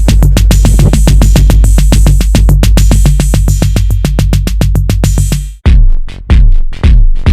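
Electronic noise/industrial music from a synthesizer and drum machine: a fast, dense drum-machine pattern over a steady bass tone stops suddenly about five and a half seconds in. A new part follows with heavy bass hits nearly twice a second.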